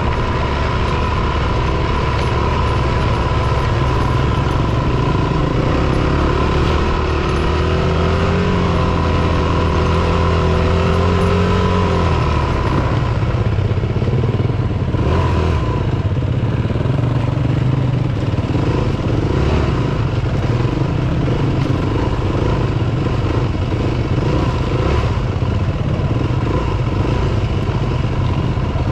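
Dirt bike engine running under way at a steady moderate speed. Its note holds and lifts slightly, then drops about twelve seconds in and stays lower and rougher.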